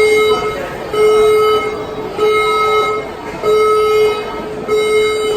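Australian building emergency warning system sounding its alert tone: a loud, steady low beep, on and off about once every 1.2 seconds, about five beeps. It is the alert stage, which tells occupants to stand by rather than evacuate.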